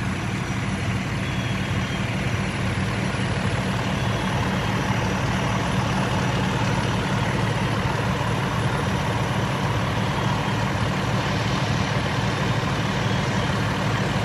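Fire engine's diesel engine running steadily, an even low drone with a hiss over it.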